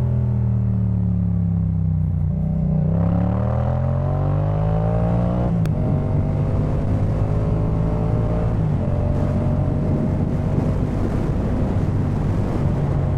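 Yamaha MT-07's parallel-twin engine through a Jeskap K4 full exhaust, heard from the rider's seat: the revs fall off, then climb for a few seconds, then drop with a gear change a little before halfway, after which the engine holds a fairly steady pitch at cruise.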